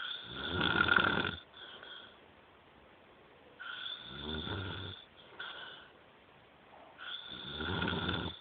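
Snoring: three loud, rasping snores about three and a half seconds apart, the first the loudest. A thin whistling tone sounds with each snore and briefly after it.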